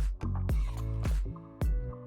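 Background electronic pop music with a steady beat of deep kick-drum hits and sharp snare or clap hits.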